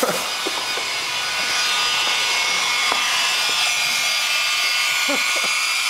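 Hand-held electric hair dryer running steadily, blowing air onto the charcoal of a small portable grill to fan the coals; a steady blowing hiss that grows louder about a second and a half in.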